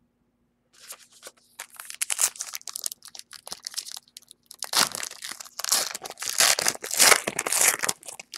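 Plastic wrapping being torn and crinkled by hand, in two stretches of dense, irregular crackling, typical of unwrapping a sealed trading-card box or pack.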